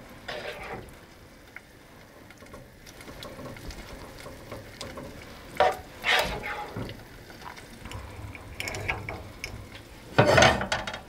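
Spoon scraping and knocking in a baking pan as ricotta is scooped and spread over a lasagna layer: a few short scrapes and clatters, the loudest near the end.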